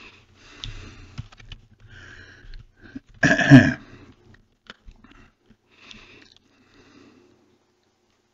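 Faint computer keyboard typing clicks, with the typist's breathing and one loud breathy noise from his nose and throat a little over three seconds in.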